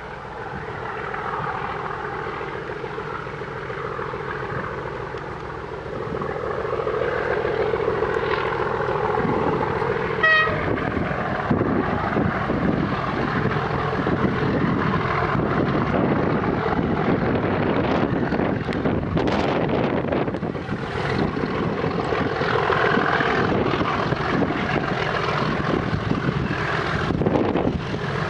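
A pair of English Electric Class 37 diesel locomotives working a passenger train under power, their engine note swelling as they approach. About ten seconds in, a single brief horn toot sounds.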